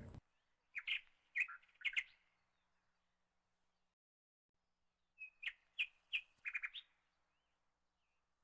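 Faint bird chirps: four short chirps about one to two seconds in, then a quicker run of chirps between about five and seven seconds.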